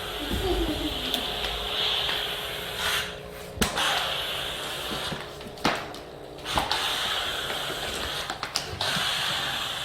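Kärcher SC4 EasyFix steam cleaner jetting steam with a steady hiss, which stops twice briefly, about three and six seconds in, with sharp knocks around each stop.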